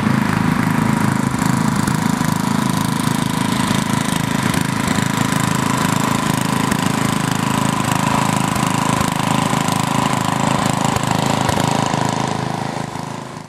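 Riding lawn mower engines running steadily, with a constant whine, fading out near the end.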